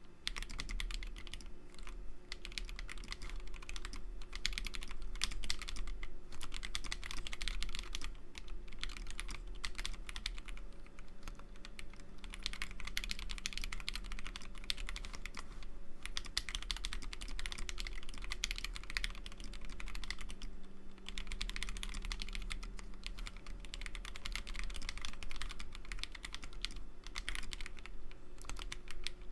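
Typing on a custom 60% mechanical keyboard, a DZ60 board with NovelKeys Silk Milkshake switches in a 3D-printed Sick-60 case. The keystrokes come fast and continuous, with a few short pauses.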